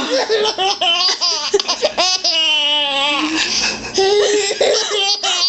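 Baby laughing in a string of short bursts, with one long held laugh about two seconds in that falls slightly in pitch.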